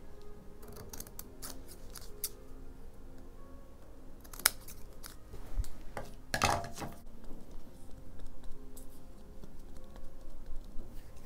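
Scissors snipping small pieces of painted watercolour paper: a run of short, sharp cuts, with a louder cluster of clicks about halfway through. Soft background music plays underneath.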